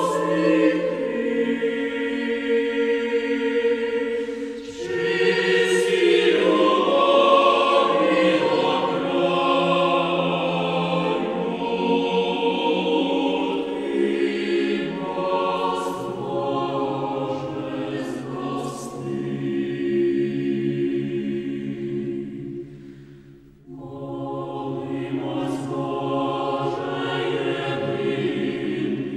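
A choir singing slow, held chords, with a brief break near the end of a phrase about three-quarters of the way through before the voices come back in.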